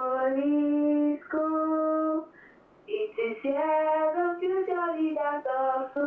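A caller singing a school anthem down a telephone line, one voice holding long notes with short breaths between them. The sound is thin, with the top end cut off as on a phone call.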